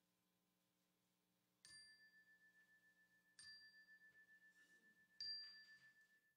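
A small bell-like chime struck three times, just under two seconds apart. Each strike rings on one clear high tone that fades with a slow pulsing waver.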